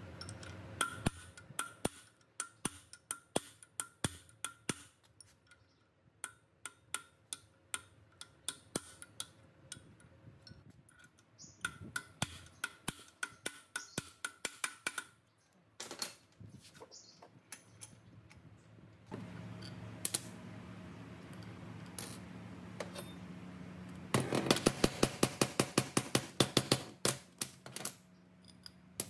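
Repeated sharp taps, about two or three a second for most of the stretch, then a fast run of louder taps near the end, over a faint steady hum.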